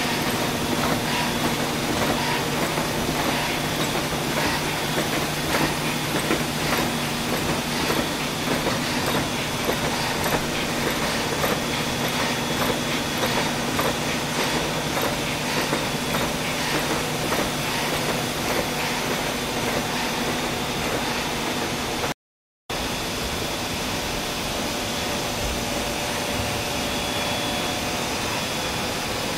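Soudronic ABM 150 aerosol can making line running: a steady machine hum with a dense, rapid clatter of tooling and cans. The sound cuts out for a split second about 22 seconds in, then carries on as a smoother, steadier hum.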